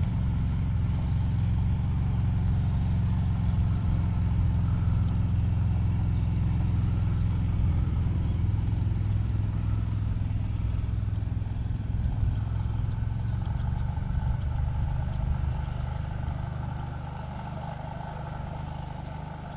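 A steady low engine drone that fades away over the last few seconds.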